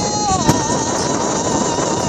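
Wind buffeting the microphone in a steady rumble. A high wavering tone holds throughout, and a single click comes about half a second in; no shot is fired.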